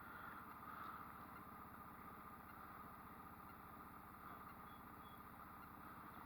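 Faint, steady outboard motor running slowly at trolling speed, an even low putter.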